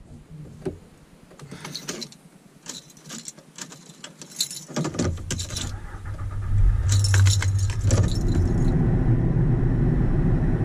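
Keys jangling in short clinking bursts, then about five seconds in a car engine comes in with a steady low rumble that grows louder a second or so later and keeps running.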